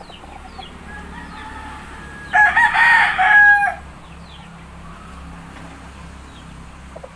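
Game fowl rooster crowing once, a loud call about a second and a half long, starting a little over two seconds in.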